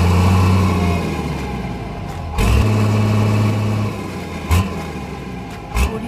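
Low, steady engine-like drone in two stretches, the first dying away about a second in, the second lasting about a second and a half. Two sharp knocks follow near the end.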